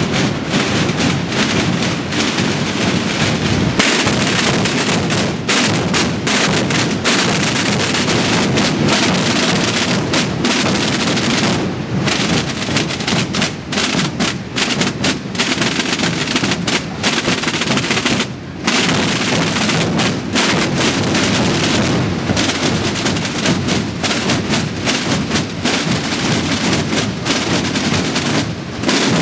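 Massed bombos (big bass drums) and snare drums of many drum brotherhoods beating together in a dense, continuous barrage of strokes, a drum 'mascletà' meant to imitate a firecracker barrage. The barrage dips briefly a little past halfway, then carries on.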